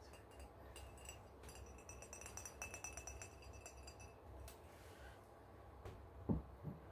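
Fingernails tapping rapidly and lightly on a ceramic coffee mug, making it ring with a clear high tone; the tapping stops about four and a half seconds in. A low thump near the end.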